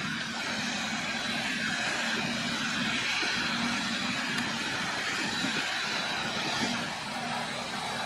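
Claas Jaguar 970 forage harvester at work chopping maize, with a tractor running alongside: a steady mix of engine drone and the rushing noise of the machinery.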